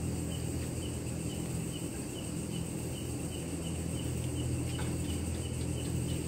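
Night insects calling: a steady high-pitched drone with a short chirp repeating evenly about two or three times a second, over a steady low hum.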